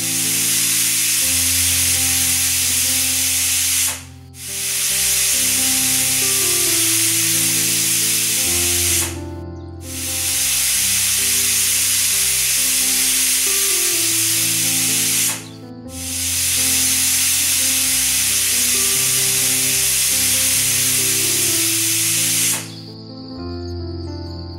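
Pressure cooker hissing as steam escapes through its weight valve, in four long blasts with short breaks between them, stopping near the end. Background music plays underneath.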